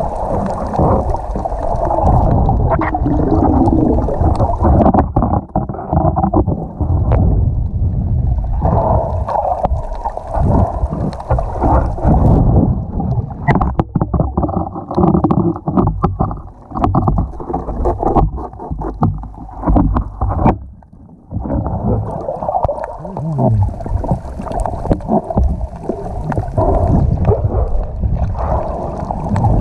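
Muffled underwater rushing and gurgling of water against a camera as a free diver swims over a reef, with scattered sharp clicks and knocks in the middle stretch.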